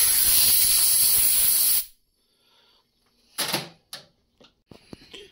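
Compressed-air blow gun blasting a steady hiss for about two seconds, clearing metal chips off a milling machine vise, then cutting off. A brief louder sound comes about three and a half seconds in, followed by a few light clicks.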